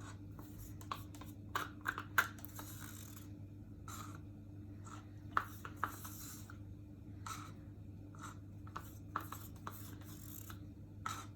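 Faint handling sounds of plastic paint cups and bottles: scattered light clicks and short scraping or rubbing noises, over a steady low hum.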